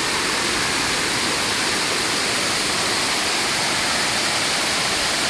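A waterfall carrying a lot of water, a loud, steady rush of falling and splashing water heard close up.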